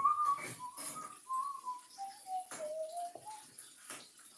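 Someone whistling a slow tune that steps downward in pitch, with the soft knocks and scrapes of a spatula stirring in a large ceramic mixing bowl.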